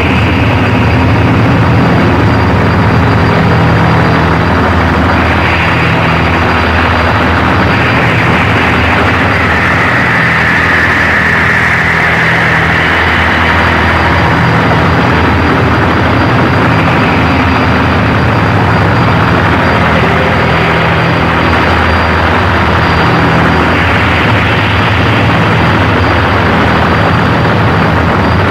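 Power electronics noise: a loud, dense wall of distorted hiss over a low droning hum, with a steady thin high whine. The upper hiss shifts in pitch and texture every few seconds.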